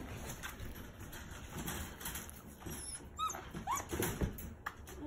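Six-week-old puppy giving two short high squeaks, a whimpering sound, about three seconds in, among light clicks and knocks.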